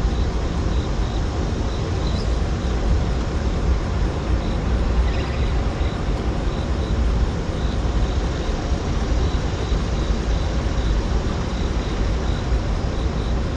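Steady low rumble with an even rushing hiss from a hydroelectric dam's running turbines and churning outflow water.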